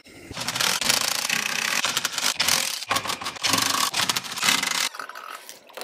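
DeWalt XR cordless impact driver hammering as it undoes the sump bolts. It runs in two long stretches with a short break about three seconds in, then stops about a second before the end.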